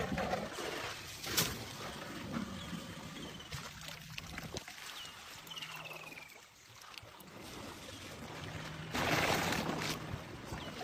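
Water sloshing and trickling as African elephants drink, their trunks dipping into the waterhole, with a louder rush of splashing water about nine seconds in. Small birds chirp faintly in short descending calls.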